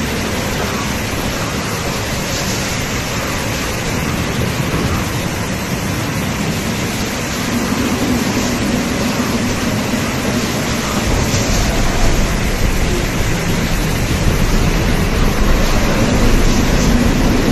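Severe storm: torrential rain and strong wind making a dense, steady rush, with a deeper rumble joining past the middle and the whole growing slightly louder.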